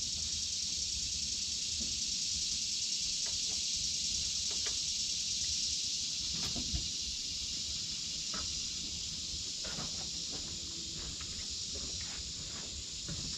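Steady high-pitched hiss with scattered faint clicks and rustles.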